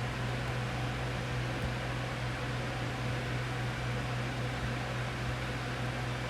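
Steady low hum with an even hiss: room background noise such as a fan or electrical hum.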